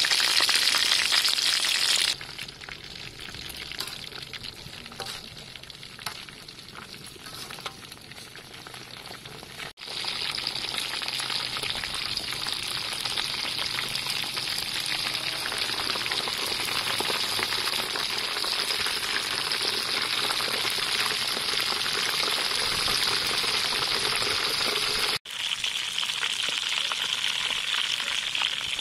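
Bread-crumbed chicken drumsticks deep-frying in hot oil in a steel pan: a steady sizzle throughout, quieter from about two seconds in, with a few light knocks in that quieter stretch, then louder again from about ten seconds on.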